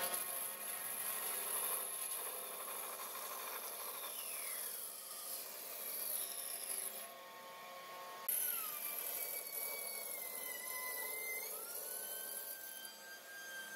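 Band saw cutting through a thick block of glued-up wood strips: a steady high whine with the rasp of the blade in the wood. The sound changes abruptly a couple of times partway through.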